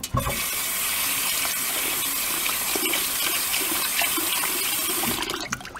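Kitchen faucet running into a glass bowl of raw mung beans in a stainless steel sink as the beans are rinsed, a steady rush of water that stops about five seconds in.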